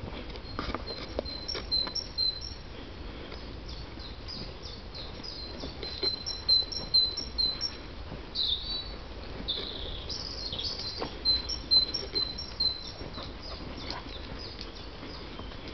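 Woodland songbirds singing, with high chirps throughout. One bird repeats a short high note in runs of two or three seconds, several times over.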